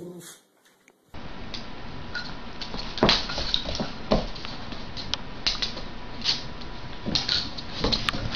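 A dog moving about on a hardwood floor with its toys: irregular sharp clicks and knocks over a steady hiss. These start after a brief low sound and about a second of silence.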